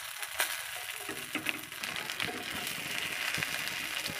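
A whole goroi (spotted snakehead) fish frying in hot oil in a wok: a steady sizzle with scattered crackles and pops of the oil.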